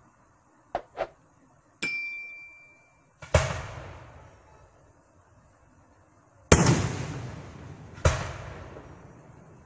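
Aerial fireworks bursting: three booms, one about three seconds in and two about a second and a half apart near the end, each rolling away slowly. Before them come two quick clicks and a short bell-like ding.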